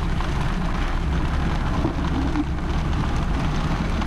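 Steady rain on a moving car, over a continuous low rumble of road and engine noise.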